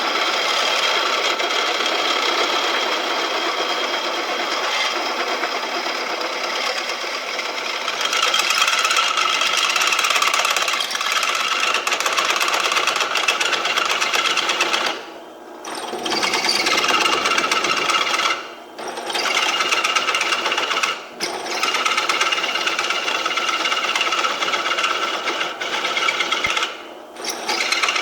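Small drill press running and drilling 3/8-inch holes through steel flat bar, its sound dropping out briefly four times in the second half. The owner calls it a gutless drill press.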